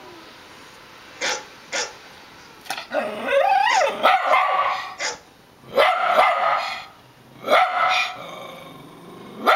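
A dog barking and howling. Two short sharp yips come a little over a second in, then a long wavering howl that rises and falls in pitch, then drawn-out barks every second or so.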